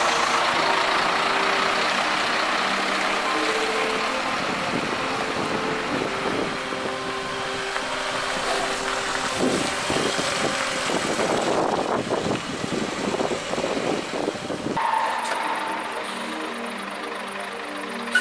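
Fire engines driving by, a loud steady rush of engine and road noise with busier stretches, over background music. The vehicle noise cuts off abruptly about fifteen seconds in, leaving the music.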